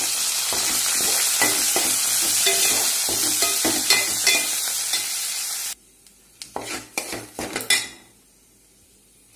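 Curry leaves, dried red chillies and mustard seeds sizzling in hot oil in a metal pan as a metal spoon stirs them: the tempering stage of the curry. The sizzle cuts off suddenly about six seconds in, leaving a few light spoon clicks against the pan and then quiet.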